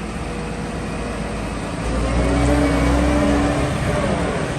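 A vehicle engine running, revving up about two seconds in and easing back down near the end.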